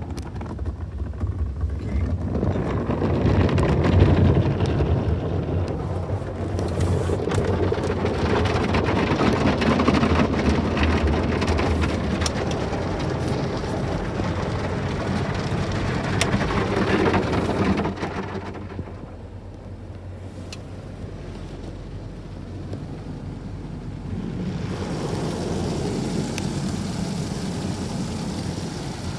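Tunnel car wash heard from inside the car: cloth brushes slapping and scrubbing across the glass and body, with water and foam spraying on, a dense rush full of short slaps. It dies down for several seconds about two-thirds through, then builds again near the end as the next stage reaches the car.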